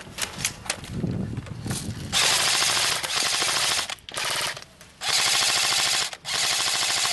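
Airsoft rifle firing full-auto in four long bursts with short breaks between them, starting about two seconds in; a few single sharp snaps come before.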